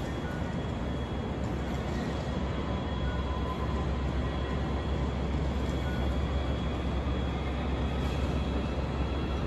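Steady ambient rumble and hiss at a tram stop, with the low rumble growing a little louder a few seconds in and a faint steady high whine over it.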